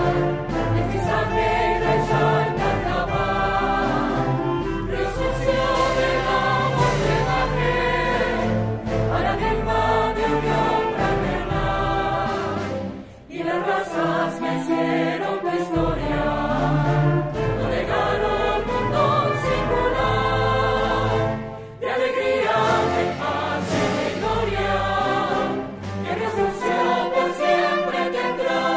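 Music: a choir singing a slow hymn-like song with instrumental backing, dropping away briefly twice.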